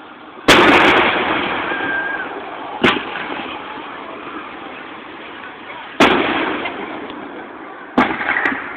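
Aerial fireworks shells bursting: four sharp bangs, about half a second in, near three seconds, at six seconds and at eight seconds. The first is the loudest and trails off over a couple of seconds.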